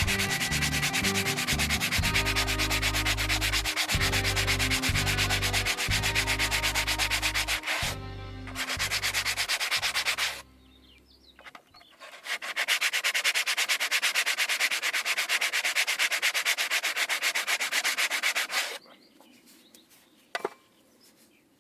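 Brake pad being sanded by hand with sandpaper: quick back-and-forth rasping strokes in two spells, breaking off about ten seconds in and starting again a couple of seconds later, stopping shortly before the end. The sanding flattens a ridge worn into the pad by a groove in the brake disc, the cause of the brakes' squeal.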